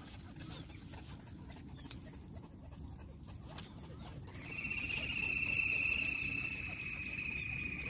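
An insect starts a steady, finely pulsed trill about four seconds in, falling slightly in pitch, over a fainter unbroken high-pitched tone.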